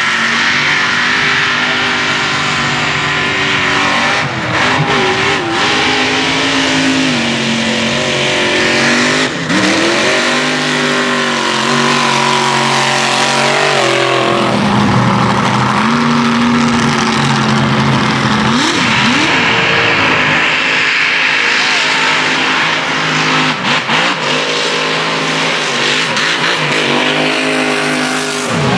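Mega trucks on oversized tires racing through dirt and mud at full throttle. Their engines are revving hard, the pitch climbing and dropping again and again as each truck accelerates and lifts off.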